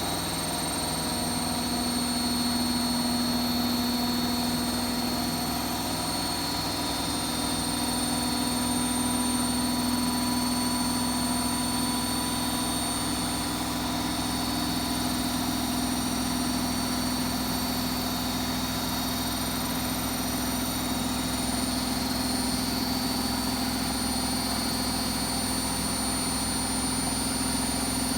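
Hotpoint WMFUG742 washing machine spinning an overloaded towel load at a steady speed: a constant motor hum with a high, steady whine over it.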